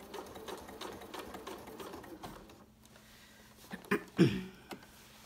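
Domestic sewing machine running slowly and steadily, top-stitching a zipper through several layers of fabric, stopping about two and a half seconds in. A few short clacks follow about four seconds in.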